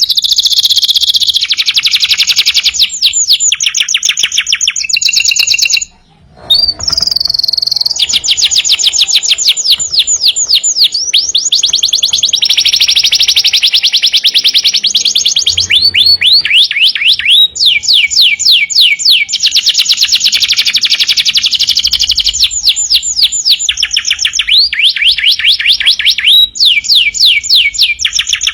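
Domestic canary singing without pause in fast trills of rapidly repeated notes, switching from one trill to the next every second or two, with a brief break about six seconds in.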